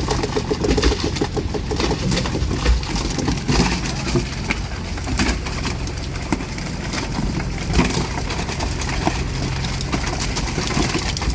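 A boat's engine idling steadily, with scattered short knocks and clatter from work on deck.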